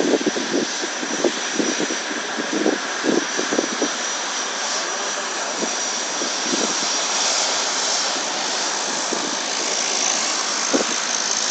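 Aircraft turbine engines running steadily, a wide rushing noise with a thin high whine over it.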